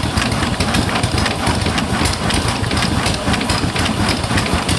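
Antique steamboat steam engine running, its valve gear and crank beating in an even, rapid rhythm over a low rumble and hiss.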